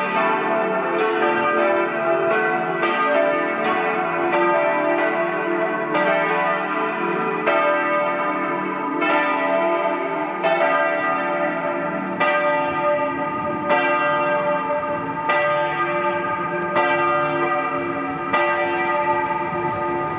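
Four church bells from 1922, tuned D, E, F-sharp and B, ringing together in a partial peal for a service. Their strokes overlap in a continuous, uneven clangour, a new stroke sounding about every second.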